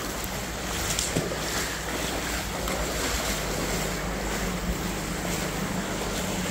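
Shallow floodwater sloshing and rippling, with a steady rush of wind on the microphone.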